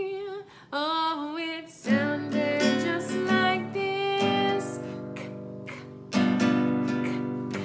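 Acoustic guitar strummed in chords, starting about two seconds in, after a short stretch of a woman's voice.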